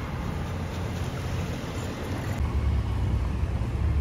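Street traffic: a steady low rumble of car engines, which gets louder about halfway through.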